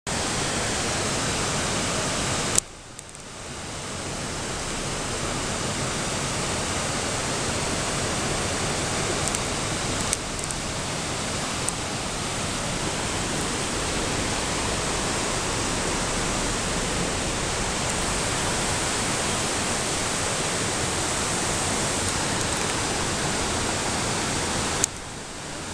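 Waterfall cascading over rocks: a steady rush of water. It drops briefly about two and a half seconds in and builds back over the next few seconds.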